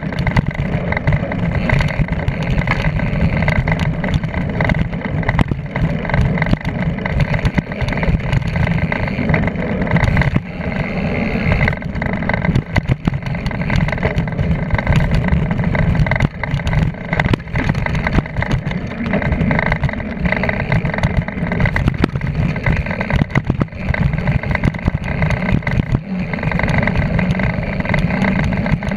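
Wind buffeting the microphone at speed, with the rattle and clatter of a bicycle rolling fast over a dirt trail.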